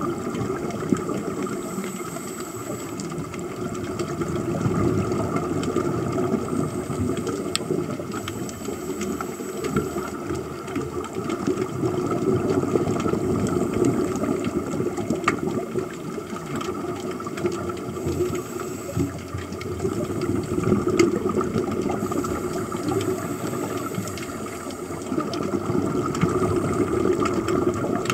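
Scuba regulator exhaust bubbles heard underwater, a continuous bubbling and rumbling that swells and eases every few seconds with the divers' breathing.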